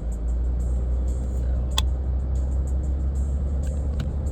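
A van driving, with a steady low rumble of engine and road noise and a sharp click about two seconds in.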